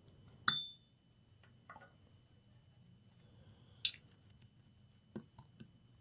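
Small metal hand tools being picked up and set down on a repair bench: a sharp, ringing metallic clink about half a second in, then a few lighter taps and clicks.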